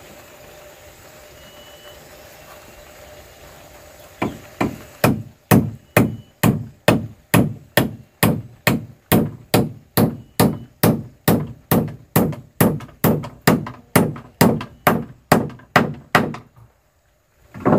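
Claw hammer driving a nail into a wooden board: two light setting taps, then about eleven seconds of evenly spaced blows, roughly two a second, which stop suddenly. One more knock comes right at the end.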